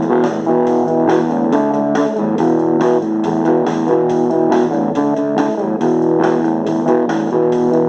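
Instrumental break of a rock song: electric guitar with bass guitar, played in an even strummed rhythm of about four to five strokes a second.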